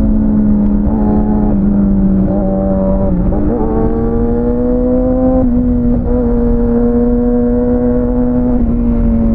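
Kawasaki ZX-6R inline-four engine running under way at fairly steady revs. Its pitch dips slightly a few seconds in, then climbs gradually before easing off again, over a constant low wind rumble.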